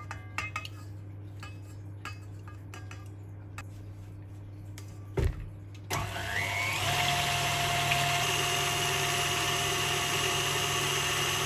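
A few soft clicks and a knock, then about six seconds in a KitchenAid Ultra Power stand mixer is switched on. Its motor rises briefly to speed and then runs steadily as the wire whisk beats heavy cream and condensed milk.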